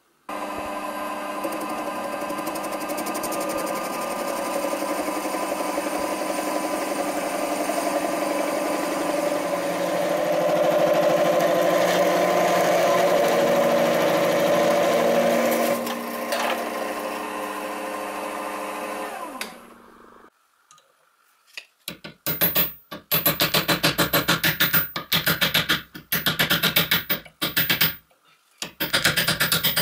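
A small metal lathe running with a steady machine whine while it turns the old copper winding off an angle grinder's motor armature; about 20 seconds in it spins down with a falling pitch. After a short pause comes a series of short scraping strokes as a steel tool works the old wire out of the armature's slots.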